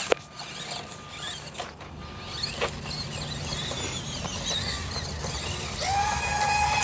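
Small electric motor of a 1/24-scale SCX24 crawler, an aftermarket Samix motor, whining as the truck crawls over rocks, with small scattered ticks and scrapes. Near the end a steady high whine sets in and holds.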